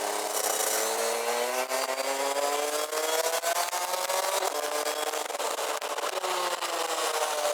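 Rotax Max DD2 kart's 125 cc single-cylinder two-stroke engine heard onboard, revving up steadily under acceleration. The pitch drops abruptly about four and a half seconds in, eases down, then begins to climb again near the end, with wind rushing over the microphone.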